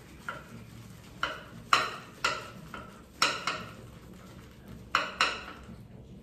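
Synthetic shaving brush whisking shaving soap lather around a ceramic shaving bowl: a run of about eight short swishing strokes, unevenly spaced, with the lather already thick and nearly ready.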